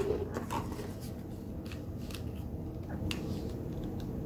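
Light handling noises: a few short clicks and rustles as yarn pompoms and craft tools are picked up and worked by hand, over a steady low background hum.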